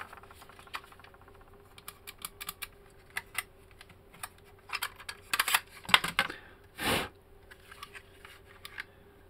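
Small sharp plastic and metal clicks and rattles from an AIWA HS-T06 cassette Walkman's casing being handled and prised apart by hand, busier in the middle, with a brief louder scrape about seven seconds in.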